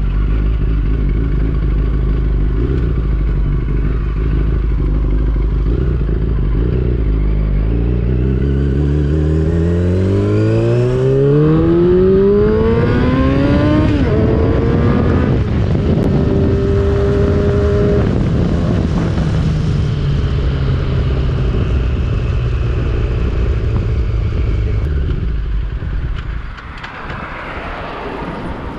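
Yamaha R6's inline-four engine on the move, running at low revs, then accelerating with its pitch rising steadily for several seconds about a third of the way in. It holds a higher note briefly, then eases off with the pitch falling slowly, and gets quieter near the end.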